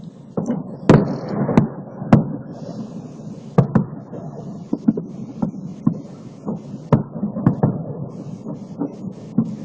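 Fireworks salute going off: a rapid, irregular string of booms and sharp bangs, densest about one to two seconds in, with a low rumble between the bursts.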